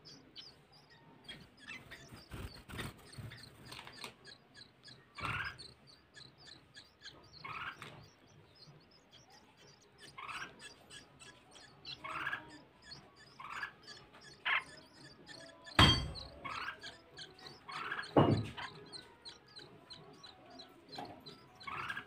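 Red-whiskered bulbuls chirping at the nest while the nestlings are fed: short chirps every second or two over a faint, fast, high ticking. Two sharp knocks stand out about two-thirds of the way through.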